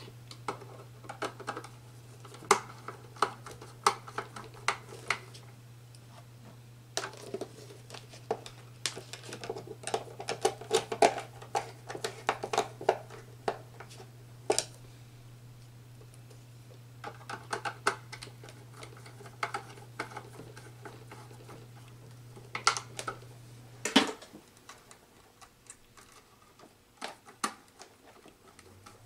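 Scattered small clicks, taps and rustling of hands working electrical wires and hand tools (wire strippers, pliers) at a wiring board. A steady low hum runs underneath and cuts off about 24 seconds in.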